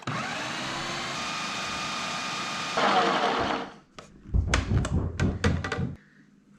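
A countertop blending appliance's motor spins up and runs steadily while mixing banana, oats and peanut butter. About three seconds in it turns louder and rougher as it churns the thick mixture, then stops. A series of knocks and clatter follows.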